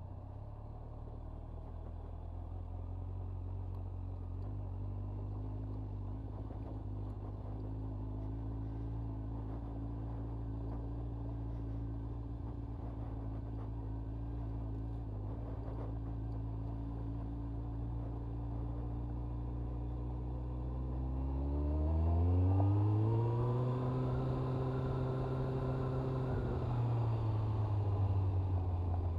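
Honda CBR1100XX Blackbird's inline-four engine pulling away in first gear at low, steady revs, heard through a lavalier mic inside the rider's helmet. About 22 seconds in the revs rise sharply, hold, then drop back near the end.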